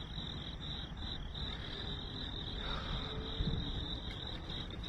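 A steady outdoor chorus of high-pitched insect chirping pulsing evenly, over a faint low rumble.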